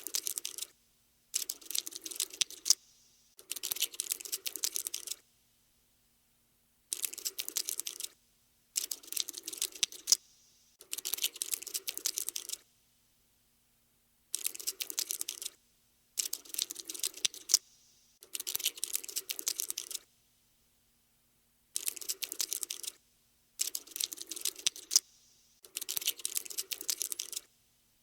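Cockroach scuttling sound effect: bursts of rapid, dry skittering clicks, each lasting one to two seconds, broken by short dead-silent gaps, about a dozen times.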